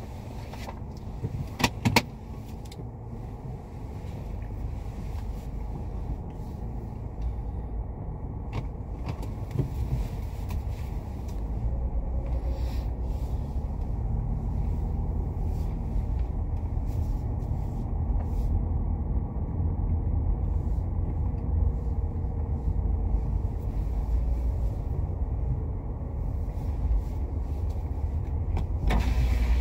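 Car driving slowly, heard from inside the cabin: a low engine and road rumble that grows slowly louder, with a few sharp clicks about two seconds in.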